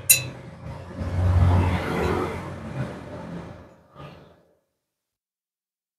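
A whoosh of rushing noise with a deep rumble that swells about a second in and fades away by about four seconds in.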